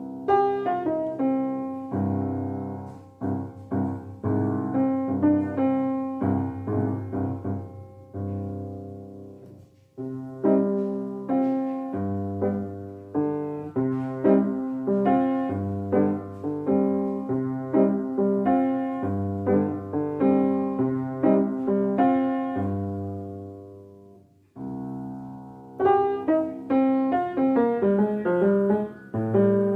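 Solo piano music, played in three phrases with brief pauses about ten seconds in and again near twenty-five seconds.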